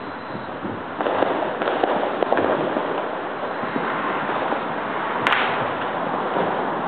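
Dense, continuous crackling and popping of New Year's fireworks and firecrackers going off. It grows louder about a second in, and one sharper bang stands out about five seconds in.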